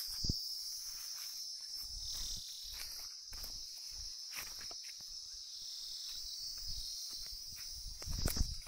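A steady, high-pitched insect chorus shrilling without a break, over irregular footsteps and brushing from someone walking on a grassy slope. The footsteps grow louder near the end.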